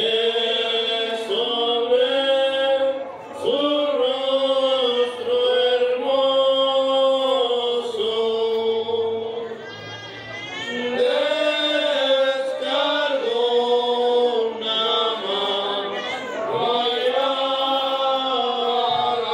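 Slow religious chant sung in long, held phrases, with brief breaks between phrases about 3 seconds and 10 seconds in.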